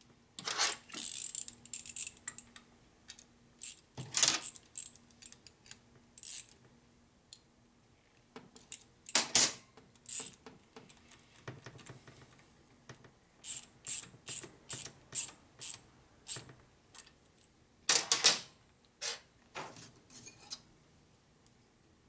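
Metal clinks and clicks of hand tools and steel studs and nuts being handled and fitted on a Harley shovelhead's aluminium crankcase, in scattered bunches, with a run of evenly spaced clicks, two or three a second, a little past the middle.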